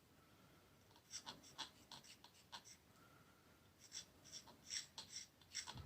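A knife blade scraping the electrical contacts of a vacuum cleaner handle clean in quick, short strokes: one run of scrapes about a second in, and another near the end.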